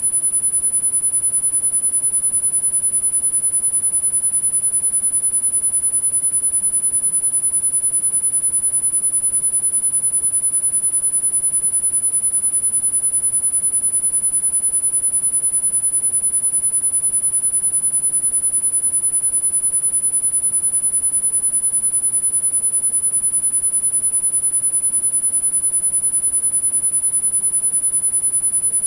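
A single steady, very high-pitched sine tone held without change: a tinnitus-masking sound-therapy tone.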